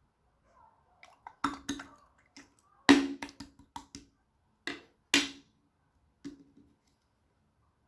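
Slime being pressed and poked by hand, making an irregular run of sharp clicking pops, loudest about three seconds in and again near five seconds.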